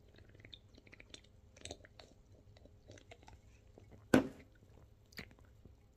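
Mouth sounds of someone drinking soda from a small can: quiet sipping and swallowing with small lip smacks and clicks. There is one sharp knock about four seconds in, the loudest sound, and a smaller one a second later.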